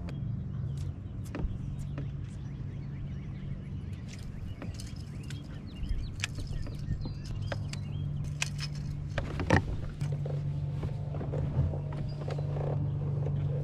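A steady low motor hum, with scattered sharp clicks and knocks from gear handled on the kayak; the loudest knock comes about two thirds of the way through.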